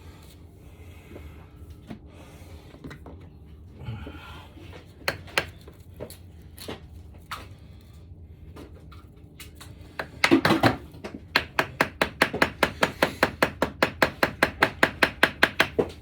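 Hand ratchet wrench working a rusty, freshly lubed fastener: a few scattered clicks, then a loud burst about ten seconds in as it turns. After that comes a steady run of sharp ratchet clicks, about five a second, to the end.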